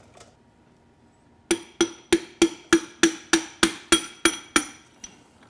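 Hammer tapping about eleven times, roughly three a second, each tap sharp with a short ringing tone, driving a piston and connecting rod up out of a Mercedes OM617 diesel's cylinder bore. The piston feels a little tight in the bore.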